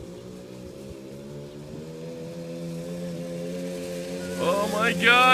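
Small youth ATV engine running at steady throttle, growing louder as it approaches. Near the end, two quick sharply rising sounds cut across it.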